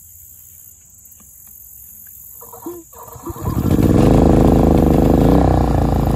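Genmax GM3500iAED inverter generator started with its electric starter on propane: a short crank, then the engine catches about three and a half seconds in and runs steadily and loudly.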